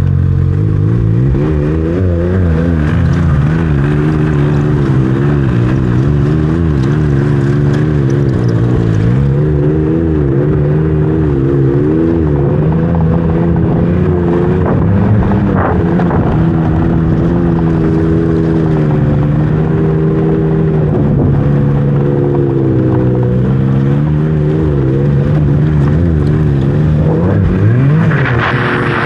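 Snowmobile engine running under way, its pitch rising and falling repeatedly as the throttle changes.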